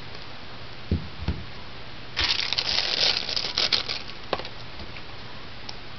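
Thin, cheap plastic bag around a new phone being opened and handled. Two soft thumps come about a second in, then a burst of rustling plastic lasting about a second and a half, with a few light clicks after it.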